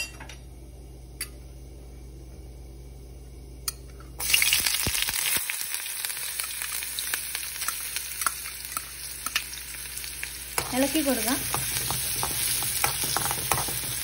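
Hot oil in a kadai, quiet but for a few sharp pops from the last mustard seeds; about four seconds in, chopped red onion drops into the oil and breaks into a loud sizzle. It then keeps frying steadily while it is stirred with a spoon.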